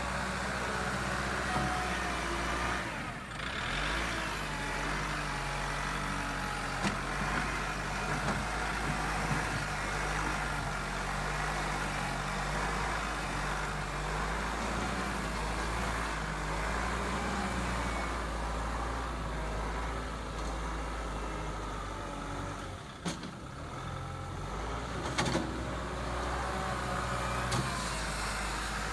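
Kubota compact tractor's diesel engine running steadily while its front loader works a dirt pile, the engine note dipping briefly twice, with a few short knocks.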